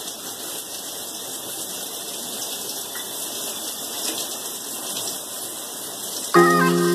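Tap water running steadily and splashing as hair is wetted under it. Music with sustained notes comes in loudly about six seconds in.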